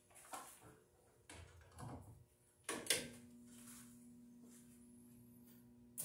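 Light knocks and clicks as an insulated wand is picked up and handled, with a sharper click about three seconds in. After that click, a faint, steady mains hum comes from a pair of microwave-oven transformers, energized but not yet drawing an arc.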